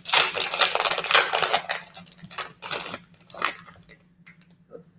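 Foil trading card pack of Illusions football being torn open and crinkled in the hands: dense crackling for about the first two seconds, then a few shorter rustles that die away.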